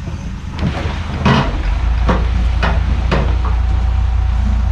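Frick sawmill carriage moving along its track: a series of sharp clanks and knocks, with a steady low rumble that grows stronger about a second and a half in and keeps going.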